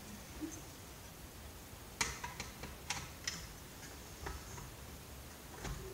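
Sharp clicks and light taps of hand tools and parts being handled while a CRT computer monitor is taken apart. Quiet for about two seconds, then about half a dozen irregular clicks.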